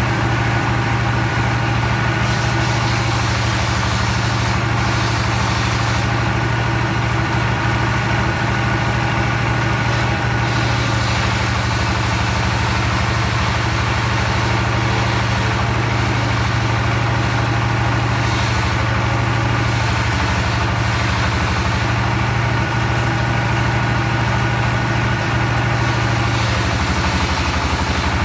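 Engine of a log sawmill running steadily at an even speed, a deep, unchanging hum with no sign of the saw biting into wood.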